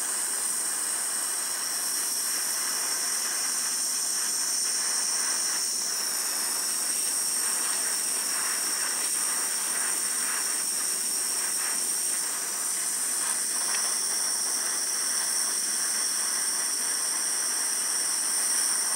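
Small handheld blowtorch, filled with lighter fuel, burning with a steady hiss while its blue flame is played on a die-cast metal toy cab.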